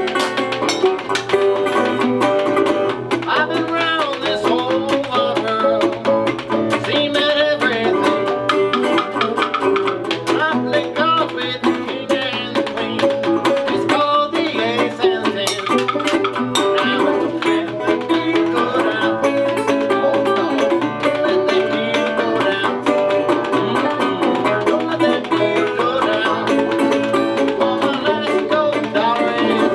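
Live string-band music: banjo and guitar picking over a scraped-and-tapped washboard rhythm.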